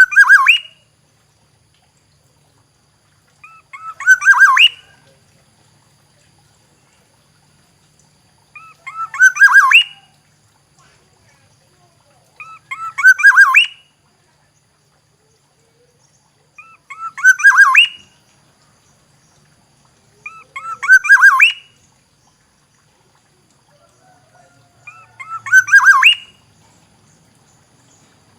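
Black-naped oriole calling: a short phrase repeated seven times, about every four seconds, each a quick run of notes that ends in its loudest one.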